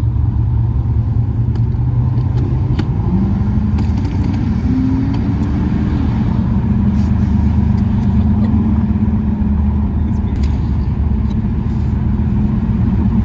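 Car engine running steadily under road rumble while driving. The engine note steps up and down in pitch a few times around three to six seconds in.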